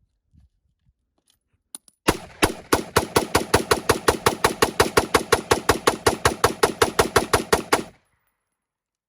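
Rapid string of about thirty gunshots, evenly spaced at about five a second, that stops suddenly.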